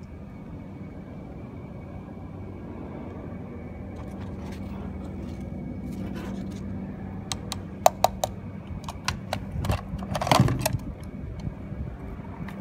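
Sharp clicks and clacks from handling an airsoft T91 rifle and its magazine, starting a little past halfway, with a louder rattle about ten seconds in. A steady low hum runs underneath.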